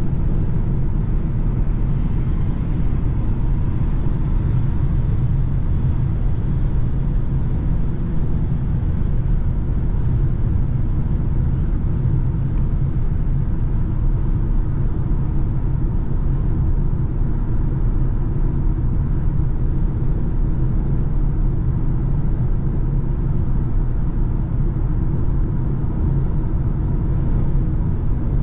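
Steady low road rumble and engine drone inside a BMW's cabin, cruising at motorway speed.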